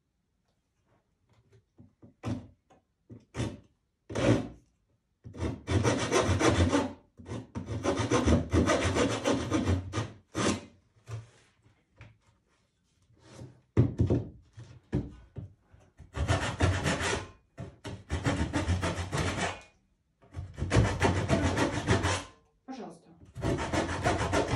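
Wide metal scraper worked in repeated rasping strokes against the edge of a painted stretched canvas, each stroke one to two seconds long with short pauses between.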